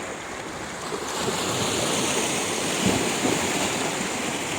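Sea surf washing onto the shore, with wind on the microphone; the wash swells louder about a second in.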